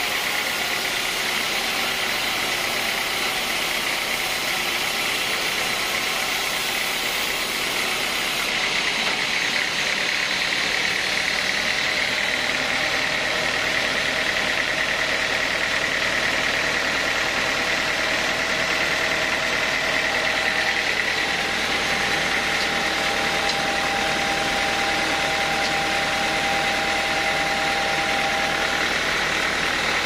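Band sawmill running steadily while it saws teak timber: a continuous mechanical drone under a held high-pitched whine that grows a little stronger partway through.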